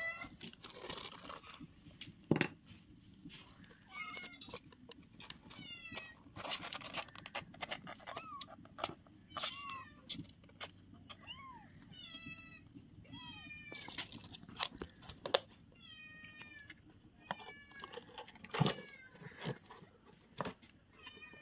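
Very young kittens mewing over and over, in short high-pitched calls that arch and fall in pitch, with occasional sharp knocks and scratching.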